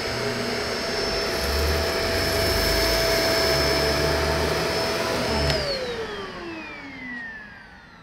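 Shark DuoClean PowerFins upright vacuum running on its carpet setting and pushed over soft carpet: a steady high motor whine over rushing airflow with a low rumble from the brushroll. The roller struggles to reach its proper speed on the carpet. About five and a half seconds in it is switched off and the whine falls away as the motor winds down.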